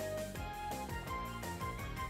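Background music: a light melodic tune with a steady bass line.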